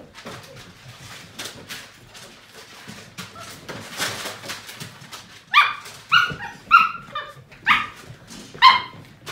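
Seven-week-old Portuguese Water Dog puppies at play: light scuffling and clicking for the first half, then a run of about six short barks in quick succession.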